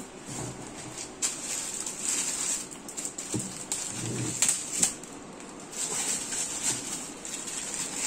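Thin plastic sleeve rustling and crinkling as a plastic-wrapped ceiling fan blade is handled and lifted out of a cardboard box, with a few light knocks of cardboard and blade.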